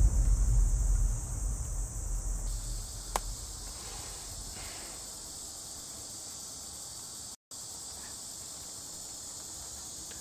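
Steady high chirring of insects in forest ambience. A deep rumble fades out over the first few seconds, and there is a single faint click about three seconds in.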